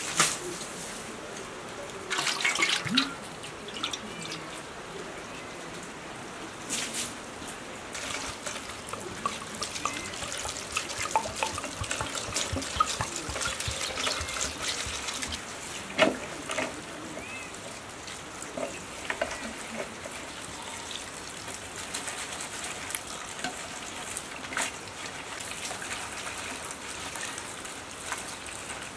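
Water poured from a clay jug trickling and splashing over fresh herbs in a metal bowl as hands swish and rinse the greens, with a few sharp knocks.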